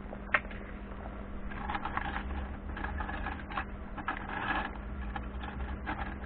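Irregular clicks and rustling of objects being handled, with a sharp click just after the start, over a steady low hum.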